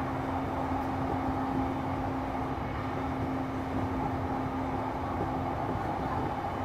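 Running noise of a JR East E233-3000 series electric train, heard from on board while moving: a steady rolling rumble with a steady hum that cuts off near the end.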